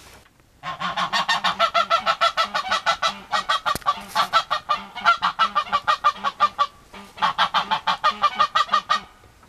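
Loud pitched calls repeated rapidly, about eight a second, in three runs broken by short pauses about three and seven seconds in. The calls start suddenly and stop just before the end.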